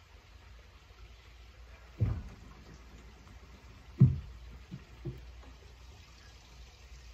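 Dull thumps and knocks of a person shifting his weight on a wooden deck while getting into a planche lean with his feet in suspension-trainer foot straps: two heavy thuds about two seconds apart, the second the loudest, then a couple of lighter knocks, over a low steady rumble.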